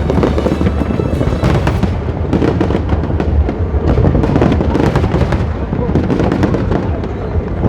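A fireworks display going off in rapid succession, dense bangs and crackles with a continuous low rumble, over music and crowd voices.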